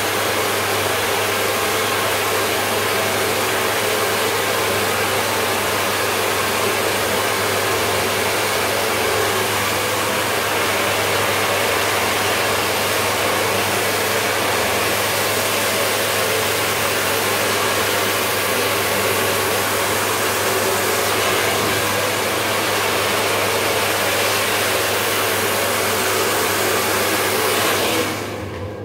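Handheld hair dryer with a narrow concentrator nozzle blowing at full speed: a loud, steady rush of air over a low motor hum, switched off near the end.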